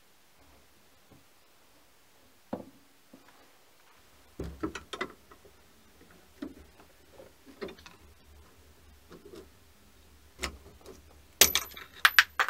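Machined steel parts of a lathe tailstock camlock clamp clicking and knocking against each other and the tailstock casting as they are fitted by hand: scattered single clicks, then a quick run of louder, sharper metallic clicks near the end.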